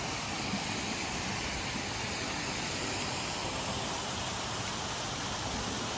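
Steady rush of a mountain stream pouring over rock slabs and small cascades.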